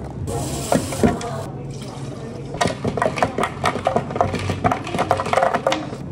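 Ice cubes tipped from a scoop into a plastic blender jar over mango chunks, clattering and clinking rapidly through the second half. A brief hiss comes about a second before.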